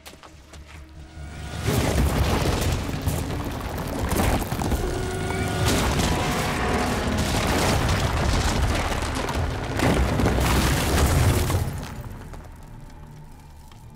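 A long, heavy rumble and crash of collapsing concrete and rubble. It comes in suddenly about two seconds in, stays loud for about ten seconds, then dies down, with dramatic film score playing under it.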